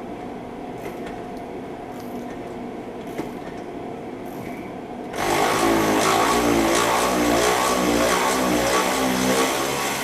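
A power tool motor starts about five seconds in and runs loudly for about four seconds, wavering in speed as it spins out one of the bolts holding a rear wheel bearing hub assembly.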